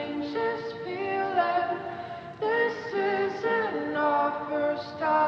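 Background music: a woman singing a song, with held notes that glide from one to the next.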